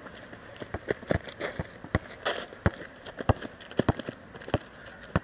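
A basketball being dribbled on a rough, gritty outdoor court: a run of sharp bounces about two a second, with sneakers scuffing and crunching on loose grit between them.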